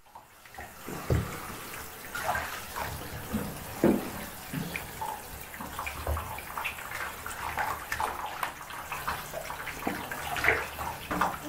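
Water splashing in a bathtub as a wet puppy is hand-washed, with irregular splashes and sloshes.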